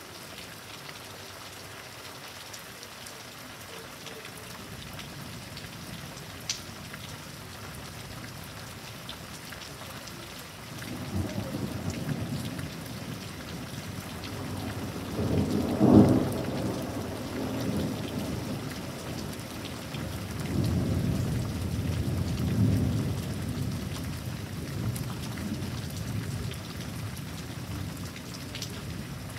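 Steady rain, joined about a third of the way in by a long, deep roll of thunder that swells to its loudest around the middle and rumbles on in waves until near the end.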